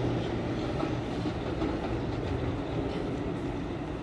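R160 subway train pulling away, the rumble of its wheels on the rails fading gradually as it draws off.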